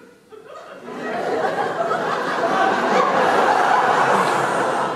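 Audience breaking into laughter about half a second in, building within a second and carrying on loudly.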